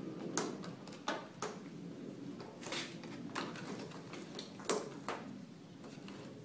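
Scattered clicks and light plastic knocks of hands handling a laptop, about seven in all at uneven intervals, over a steady low hum.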